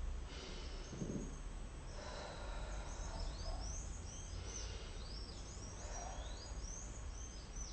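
Faint birdsong: a string of quick rising chirps from about two and a half seconds in, over a low steady hum.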